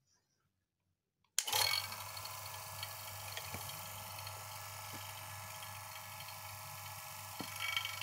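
Refrigeration vacuum pump switched on about a second and a half in, starting abruptly and then running steadily with a low hum under a whir. It is evacuating the refrigerator's lines before they are charged with freon.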